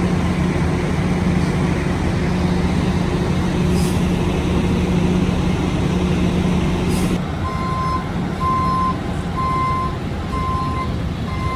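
A heavy vehicle's engine hums steadily. About seven seconds in, the sound cuts to a reversing alarm beeping at one high pitch, about once a second, over a lower engine rumble.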